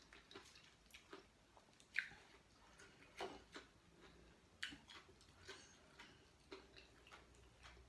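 Faint chewing of food, with scattered short soft clicks and taps as fingers handle and pluck small vegetables from a stalk.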